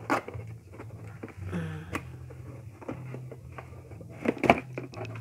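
Cardboard packaging scraping and knocking as the contents are pulled out of a laptop's cardboard box, with a louder cluster of knocks about four and a half seconds in.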